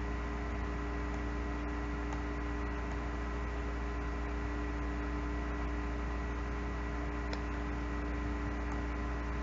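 Steady electrical hum with a faint hiss, the recording chain's background noise, with a few faint clicks.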